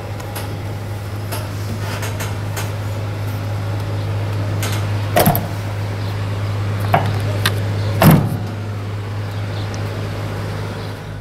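A steady low hum runs under a few sharp knocks and clunks from a truck's cab door being handled, the loudest about eight seconds in.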